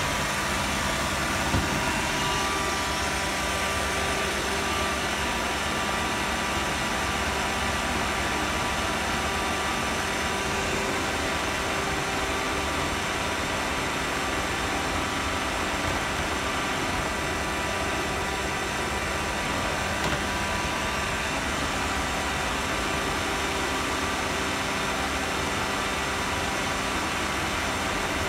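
Roomba robot vacuum running: a steady motor hum with a few steady tones over it, picked up by a phone riding on top of the robot. There is a light knock about a second and a half in.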